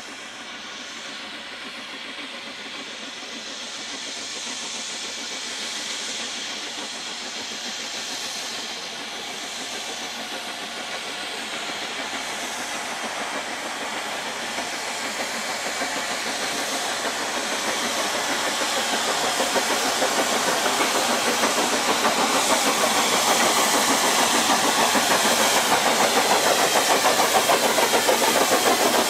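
Triple-headed train of three small narrow-gauge steam tank locomotives working toward and into the station: the hiss and exhaust of the engines grow steadily louder as the train draws near.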